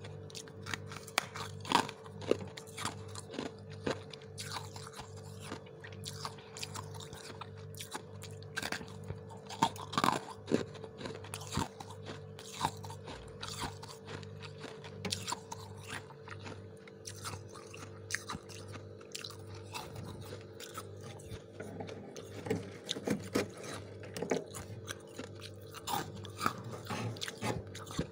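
Freezer frost being crunched and chewed, a long run of sharp, uneven crunches, over a steady low hum.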